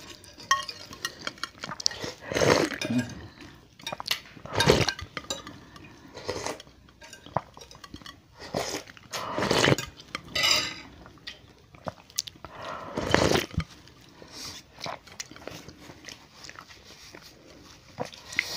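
Noodles and soup slurped in several separate slurps, with metal spoons and forks clinking and scraping against bowls between them.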